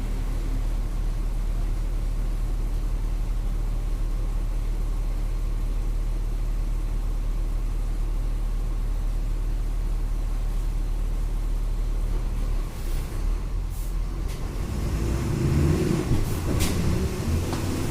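Volkswagen Volksbus 17.230 EOD city bus engine heard from inside the bus, running with a steady low drone. About thirteen seconds in the note changes to a louder, rougher rumble with rattling and a few sharp clicks.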